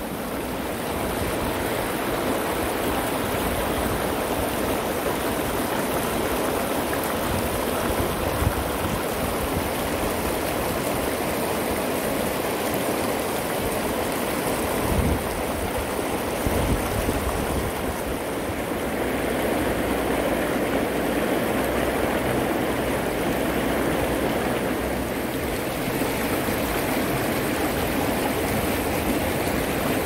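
A shallow, fast stream rushing over stones, a steady sound of running water, with a few brief low thumps about halfway through.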